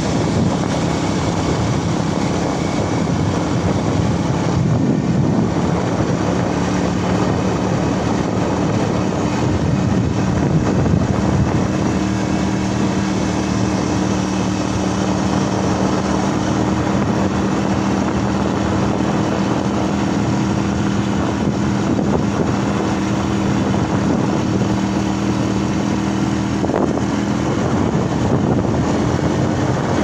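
A vehicle's engine running at a steady cruising speed with wind rushing on the microphone. The engine's hum holds steady and shifts a little near the end.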